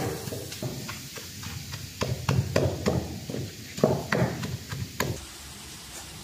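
Pestle pounding chillies, coriander and salt in a stone mortar: a run of irregular dull knocks that stops about five seconds in.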